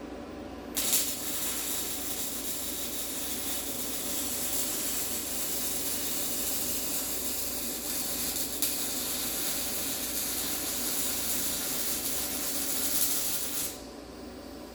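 MIG welding arc from a small YesWelder running 0.030 wire with CO2 shielding gas, hissing steadily as a bead is laid. It strikes about a second in and cuts off shortly before the end, over a steady low hum.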